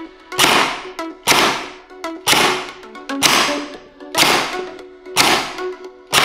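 Jin Ming M4A1 Gen 9 gel blaster, an electric gearbox-driven blaster, firing single shots on semi-automatic, about one shot a second and seven in all. Each shot is a sudden snap that fades quickly.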